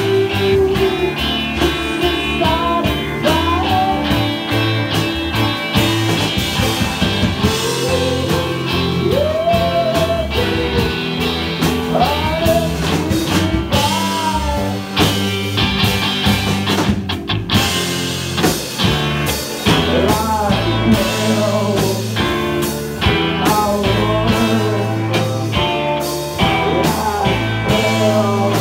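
Live rock band playing: electric guitars, drum kit and keyboard, with a lead line that slides and bends in pitch.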